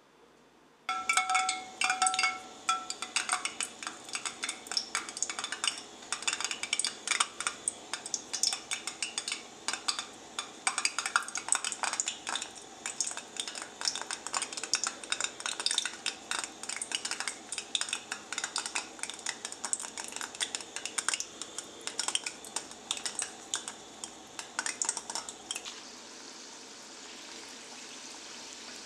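Dough dumplings frying in a pan of hot oil, starting about a second in: dense, irregular crackling and popping that settles near the end into a steadier sizzling hiss.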